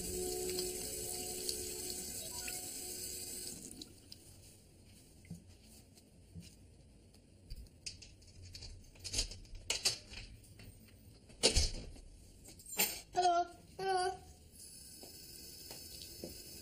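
Water from a bathroom tap splashing into a sink, with several sharp knocks and splashes and two short wavering squeaks near the end. Background music fades out a few seconds in.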